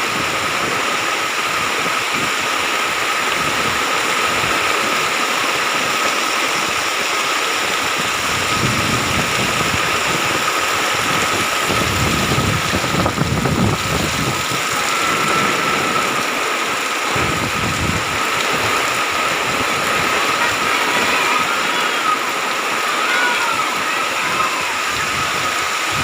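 Heavy rain pouring down steadily, with floodwater running over the ground. A faint steady high tone runs through it, and a low rumble swells in the middle.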